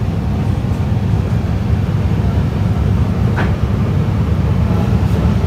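Steady low rumble of shop background noise, with a faint distant voice briefly about three and a half seconds in.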